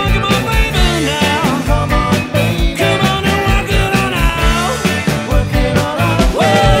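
Live rock band playing a song: drum kit keeping a steady beat, electric bass guitar and keyboard, with a gliding melody line over the top.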